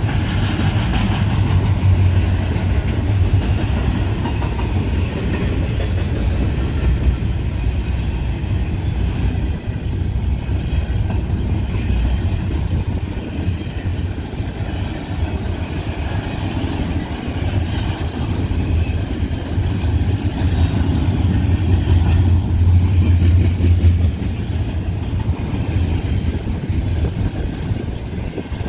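Double-stack intermodal well cars rolling past on the rails, a steady loud rumble of steel wheels and cars. A brief high squeal comes twice, about a third of the way in.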